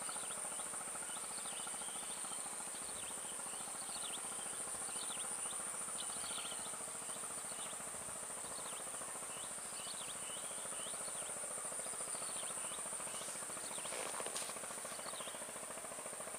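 Swamp insects droning steadily at a high pitch, with many short chirping calls repeating over it.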